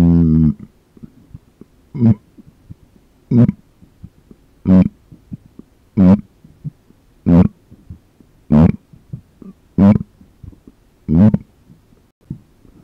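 A run of eight short closed-mouth burps close to the microphone, one about every 1.3 seconds, each a brief low pitched gulp. A longer, louder pitched burp cuts off about half a second in.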